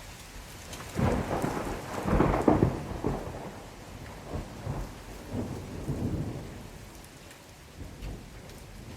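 Steady rain falling, with a roll of thunder that starts about a second in, swells to its loudest shortly after, and rumbles on in weaker waves before fading away.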